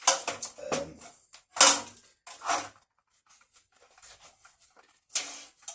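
A series of knocks and clunks from objects being handled and set down, the loudest about a second and a half in, followed by fainter clicks and one more knock near the end.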